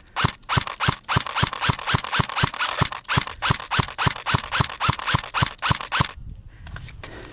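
Airsoft gun firing single shots in a steady rhythm, about three a second, each a sharp crack. The shots stop about six seconds in.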